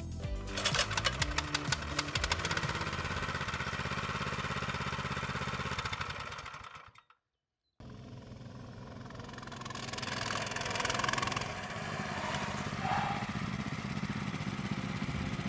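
Scout Safari mini-bike's 200 cc Lifan four-stroke engine pull-started on its recoil starter, catching about half a second in and running steadily; it fades out, breaks off briefly, then engine running is heard again.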